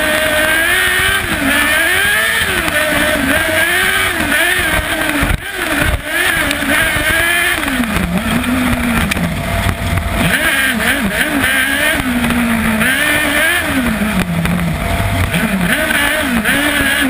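Kartcross buggy's 600cc Yamaha R6 inline-four motorcycle engine at racing speed, revving up and falling back again and again through gear changes, with a brief drop about five seconds in.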